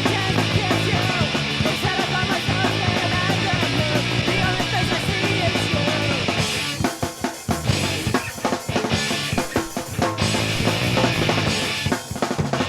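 Punk rock music: a dense, full-band passage, then from about halfway a drum-led break of separate hits with short gaps between them.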